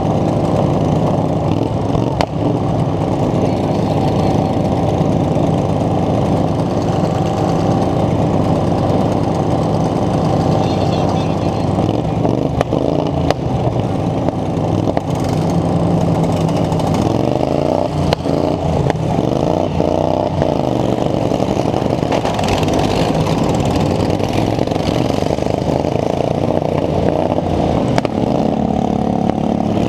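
Racing lawn mower engines running hard. Several engines rise and fall in pitch as they rev, most plainly in the middle stretch, with a few sharp knocks.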